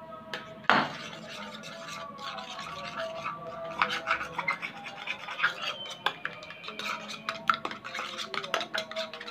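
Metal spoon stirring thick, sticky glue-and-borax slime in a small bowl, with quick repeated clicks and scrapes as the spoon works the mixture and knocks the bowl. One sharp knock comes just under a second in.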